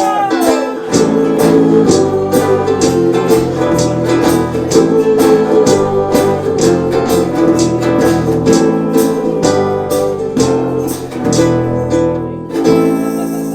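Rockabilly band playing an instrumental ending: guitar and bass over a steady drum beat. Near the end the beat stops and a final chord rings out and fades.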